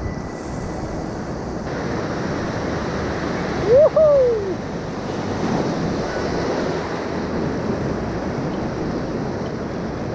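Fast river water rushing through rapids, with wind buffeting the microphone. About four seconds in, a brief loud shout rises and then falls in pitch.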